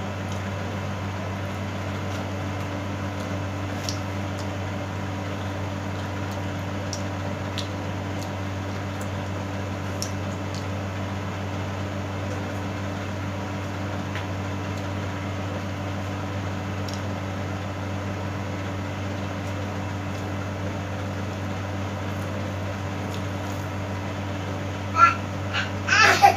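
Steady low hum of a running room appliance, with faint scattered clicks of someone eating grilled pork with her hands. A short vocal sound comes in near the end.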